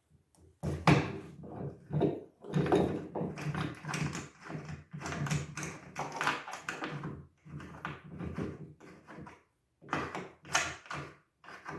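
Allen wrench and small metal parts tapping, clicking and scraping in irregular bursts as the end-pin assembly is unbolted from a double bass.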